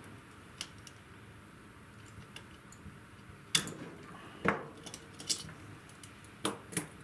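Small metal parts and hand tools being handled on a workbench: scattered sharp clicks and clinks, the loudest about three and a half and four and a half seconds in, with two more near the end.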